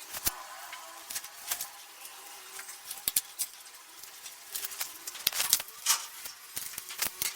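Scattered light clicks, taps and rustles of plastic canister-filter parts and media being handled and fitted together, irregular and unhurried.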